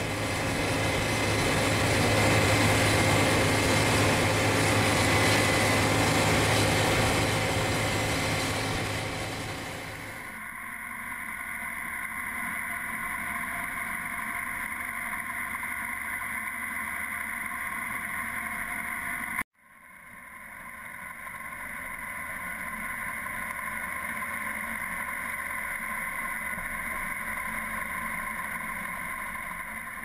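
A Case IH 8120 combine running loud as it passes close by on a gravel road, with a strong low hum. After about a third of the way through, this gives way to the steady, even running of the combine and its draper header cutting wheat, heard from a camera on the header. That sound breaks off abruptly for an instant about two-thirds through, then carries on.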